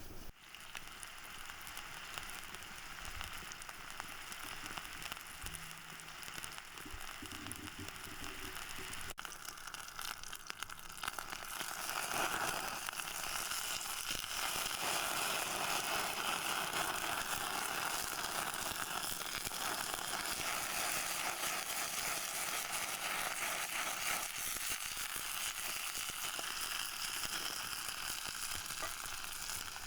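Forest mushrooms frying in vegetable oil in a pan over a campfire, sizzling steadily. The sizzle gets louder about twelve seconds in.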